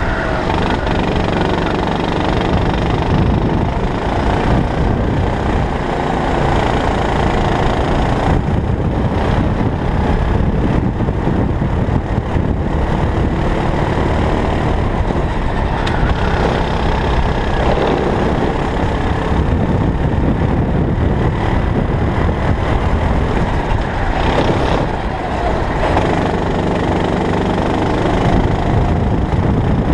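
A rental racing kart's engine heard close up from onboard, running hard around a lap. Its note drops and climbs again a few times as it lifts off for corners and accelerates out.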